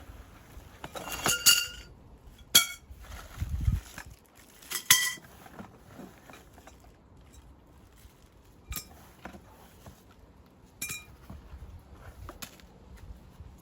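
A series of sharp clinks, hard objects knocking together, some ringing briefly: a cluster about a second in, then single clinks spread out over the following ten seconds. There is a dull low thud between them.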